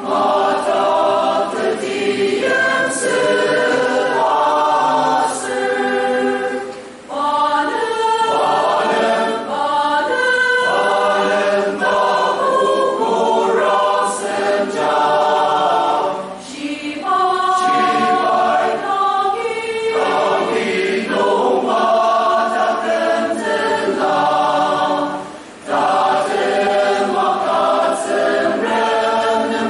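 A mixed choir of men's and women's voices singing in several parts, with short breaths between phrases about a quarter, a half and five-sixths of the way through.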